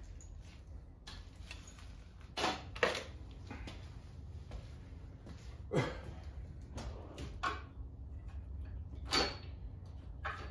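About half a dozen scattered knocks and clinks of engine parts and tools being handled, over a steady low hum.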